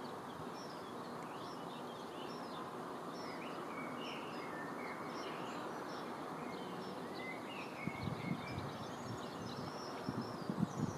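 Birds chirping and twittering over a steady outdoor background hiss, with a few low thumps in the last few seconds.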